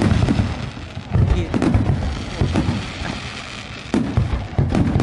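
Aerial firework shells bursting in a rapid series of deep booms, several coming close together.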